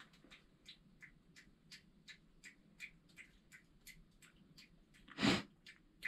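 Faint, evenly spaced light ticks, about three a second, then one short, louder sniff about five seconds in.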